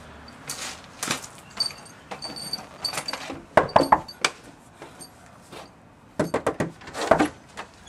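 Knuckles knocking on a wooden front door, in two rounds a few seconds apart, the second round longer.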